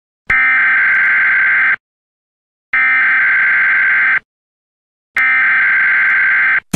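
A buzzer sounds three long, identical blasts of about a second and a half each, a second apart.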